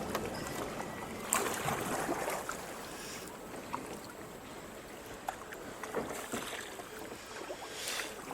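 Kayak paddling on a creek: several paddle strokes swishing through the water, with a few light knocks.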